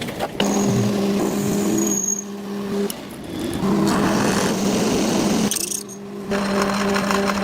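Workshop machine motor running with a steady hum, cut off and resumed twice, as between edited shots.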